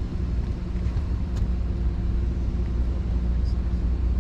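Steady low engine drone with a constant pitch.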